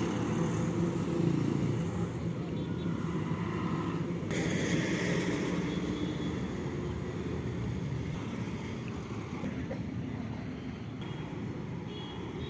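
Highway traffic: heavy trucks' diesel engines running and driving past, with a louder rush of passing-vehicle noise about four seconds in.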